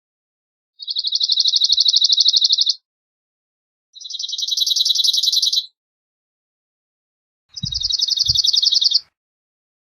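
Cirl bunting singing: three fast, dry trills, each a single note repeated rapidly on one pitch for about two seconds, with silent gaps between them.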